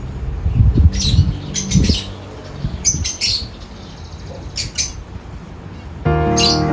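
Small birds chirping: clusters of short, high-pitched chirps about once a second, over low rumbling thumps in the first two seconds. Music comes in near the end.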